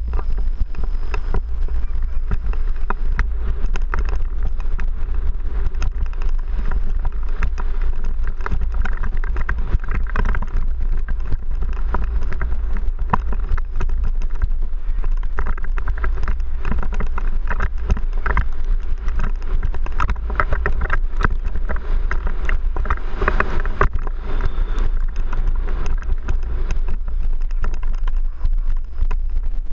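Wind rumbling on a helmet-mounted camera's microphone during a fast downhill mountain-bike descent, with constant rattling and knocking of the bike over a rough dirt trail.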